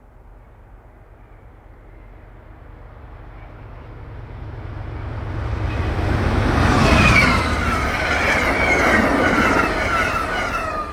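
Amtrak passenger train approaching and passing at speed: a rumble builds steadily to its loudest about seven seconds in. While the cars go by, the wheels make rapid clicks over the rail joints and a high whine sweeps down in pitch, then the sound starts to fade near the end.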